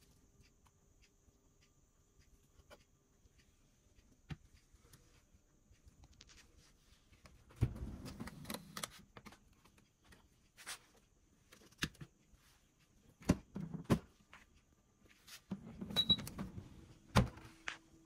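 Refrigerator drawers and shelves being handled: short bursts of plastic clicks, knocks and sliding about a third of the way in, again after the middle, and near the end.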